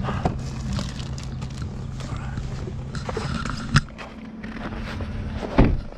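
Someone getting out of a vehicle with its engine running: footsteps crunch on packed snow over a low steady engine hum. A car door shuts with a sharp bang about four seconds in, and the hum is quieter after it; a heavy thump follows near the end.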